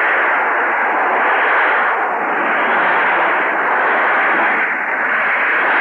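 Loud, steady rushing noise of churning, foaming water, a film sound effect.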